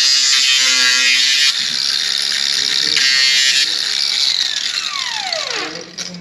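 Angle grinder running against steel, then switched off about five seconds in and spinning down with a falling whine.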